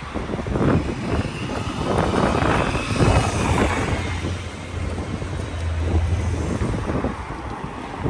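Cars passing close on a wet, slushy road, a loud rush of tyres and engines with a low rumble that swells towards the middle, mixed with wind buffeting the microphone.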